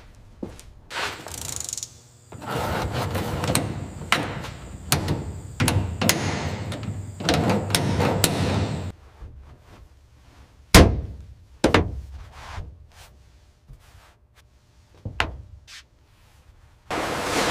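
Hand work on an old car's body and interior trim: scattered knocks and taps, a stretch of scraping and rustling in the first half, and one heavy thunk about eleven seconds in.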